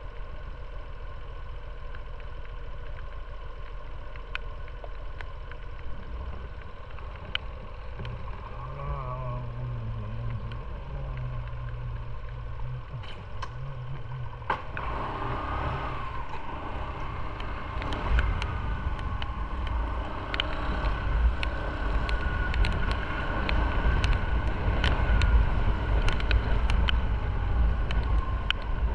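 Maxi-scooter engine idling, then pulling away about halfway through and riding slowly, growing louder over the second half. Scattered sharp ticks run through it.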